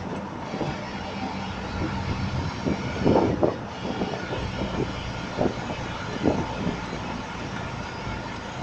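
Moving truck heard from its open cargo bed: a steady engine drone with road and wind noise, and a few short knocks and rattles, the loudest about three seconds in.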